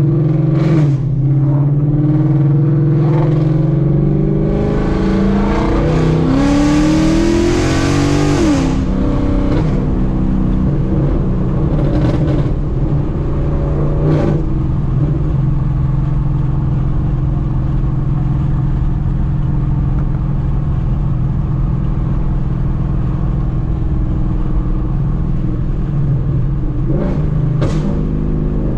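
Ford Mustang GT's Coyote 5.0 V8 on straight pipes (long-tube headers, X-pipe, no mufflers) accelerating, its pitch rising for about eight seconds and growing louder and rougher before dropping sharply, then running steadily at cruise. A few short sharp cracks come through along the way.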